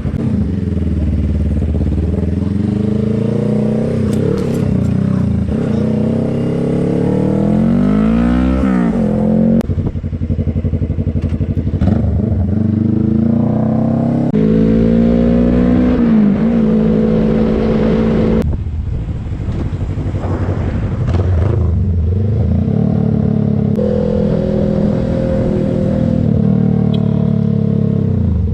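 2018 Suzuki GSX250R's parallel-twin engine under way, its pitch climbing under acceleration and dropping at each gear change, several times over.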